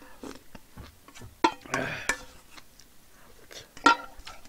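Close-miked eating: chewing a mouthful, with scattered sharp clicks of a spoon and chopsticks against a thin yellow aluminium pot. The two loudest clicks come about a second and a half in and near the end.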